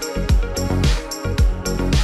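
Electronic background music with a steady, punchy kick-drum beat, sharp hi-hat strikes and sustained synth tones.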